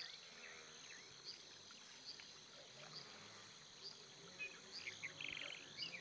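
Faint natural ambience: scattered high chirps and ticks from insects and birds, with a short buzzy trill about five seconds in.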